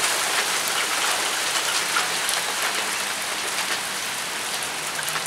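Hail shower: small hailstones pattering down on paving stones and grass, a dense steady patter of many small impacts that eases slightly.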